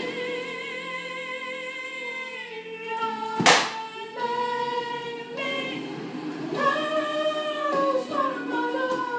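A woman singing long held notes with a wavering vibrato. A short, sharp noise breaks in about three and a half seconds in and is the loudest moment.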